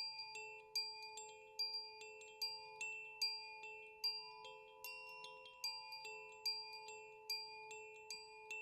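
Kalimba played in a steady, even pulse of about two to three plucked notes a second, the lower notes ringing on beneath the newer ones.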